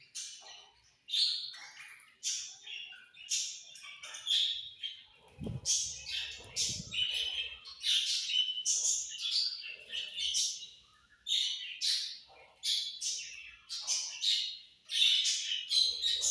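Several budgerigars chirping and chattering, short high calls following one another several times a second without a break.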